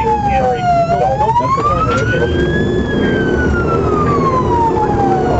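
Police car siren on a slow wail. Its pitch falls, climbs over about two seconds, then falls again, with the low rumble of the moving car underneath.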